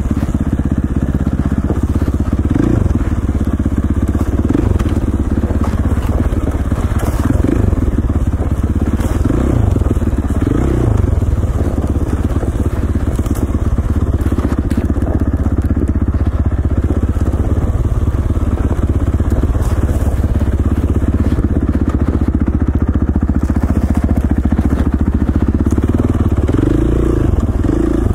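KTM 450 dirt bike's single-cylinder four-stroke engine running under way, loud and steady, its note swelling now and then with the throttle.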